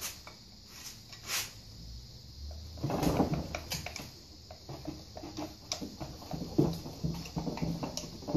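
Screwdriver prying between a Can-Am ATV engine case and its transmission housing: metal scraping and clicking with scattered knocks, and a louder scraping stretch about three seconds in as the housing is worked apart.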